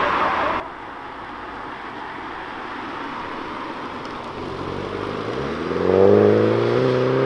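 A three-door Mini hatchback's engine pulling away and accelerating hard, its note rising steadily in pitch from about four and a half seconds in and loudest near six seconds.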